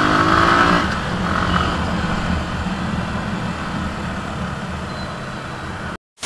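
Motorcycle engine accelerating, its pitch rising through about the first second, then running steadily at road speed under wind and road noise. Near the end the sound cuts out briefly and gives way to a burst of TV-static glitch effect.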